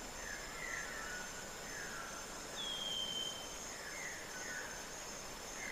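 Tropical rainforest ambience: a steady high insect drone, with a bird repeating a short sweeping call about once a second. One brief falling whistle comes about two and a half seconds in.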